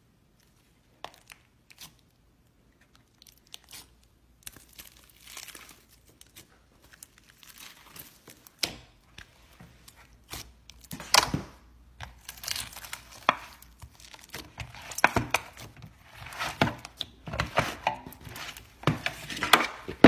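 Hands squeezing, pressing and stretching a sticky foam-bead slime (floam), the beads crackling and popping and the slime tearing. It starts as a few sparse clicks and becomes denser and louder crackling in bursts from about halfway.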